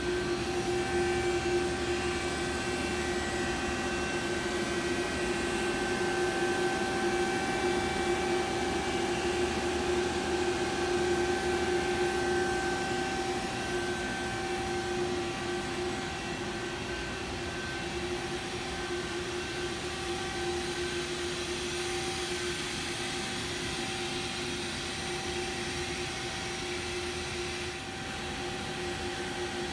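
Powered-up Mazak VTC-200/50 CNC vertical machining center idling: a steady hum with a constant whine over an even hiss.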